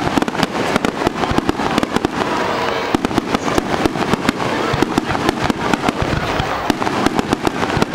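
Aerial fireworks going off in rapid succession: a dense, unbroken string of bangs and crackling, many reports a second.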